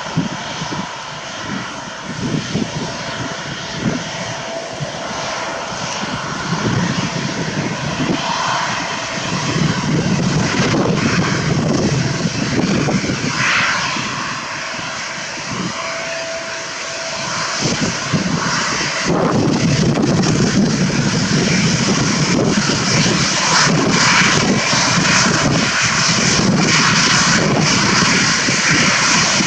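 Jet airliner taking off, its engines a steady roar that grows louder from about two-thirds of the way in.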